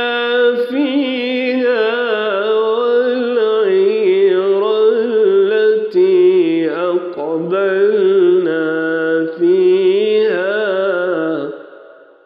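Solo male voice chanting Quranic recitation in the melodic tajweed style, with long, ornamented held notes and wavering pitch. The voice stops near the end and fades out.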